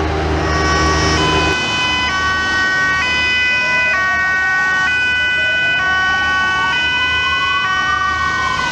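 Police van siren sounding a two-tone hi-lo pattern that switches pitch about once a second, with a slow wail rising and then falling beneath it. A low engine hum stops about a second and a half in.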